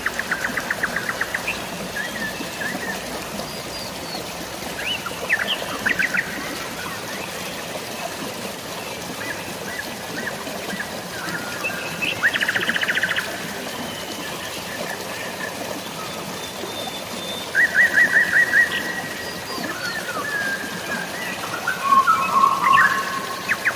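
Birds chirping, with quick rapid-fire trills repeated several times (near the start, about halfway, around 18 seconds and near the end), over a steady hiss of light rain and running water.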